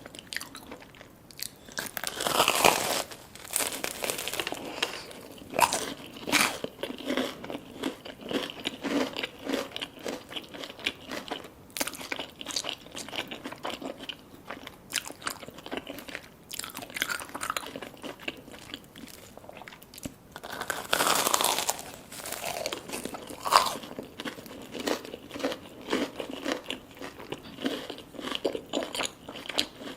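Biting into and chewing crispy fried food: loud crunching bites about two seconds in and again around twenty-one seconds in, with steady crunchy chewing in between.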